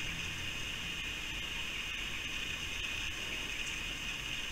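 Steady background noise: a constant high-pitched hiss with a faint low rumble beneath, with no distinct sounds from the wallaby.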